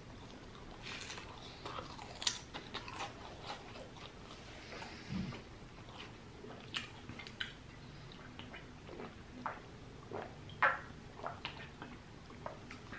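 A person chewing a mouthful of cheesesteak sandwich close to the microphone: scattered faint mouth clicks and smacks.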